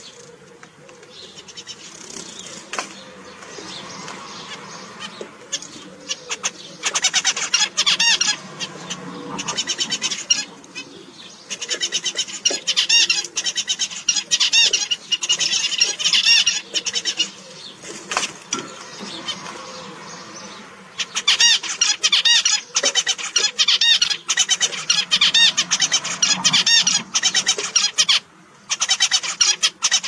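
Zebra finches singing and calling in bursts of rapidly repeated notes, each bout lasting several seconds, with short pauses between bouts.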